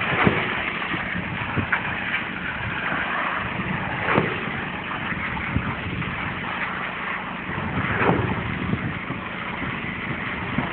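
Truck-mounted concrete pump running steadily during a slab pour, with a louder surge roughly every four seconds.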